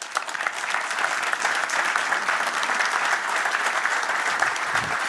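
Audience applauding steadily after a talk.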